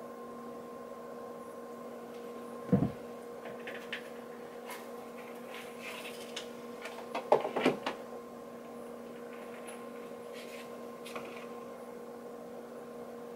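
Steady electrical hum throughout, with handling noise from a necklace and its jewelry gift box: one short knock about three seconds in and a quick cluster of clicks and taps between seven and eight seconds.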